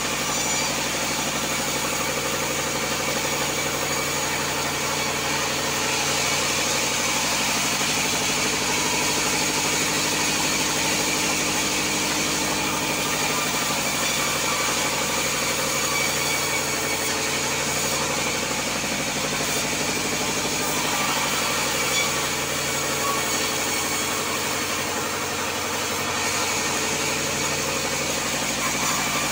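Sawmill bandsaw and its drive running steadily while a crooked log is fed through the blade and sawn into a board: a constant mechanical hum with the hiss of the cut over it.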